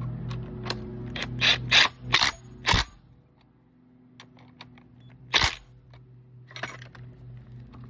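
Sharp metal clicks and clanks from handling a lawn edger's blade and its bolt during a blade change: a quick run of four loud ones in the first three seconds and one more about five seconds in, with lighter ticks between. A steady low hum underlies the first three seconds and stops there.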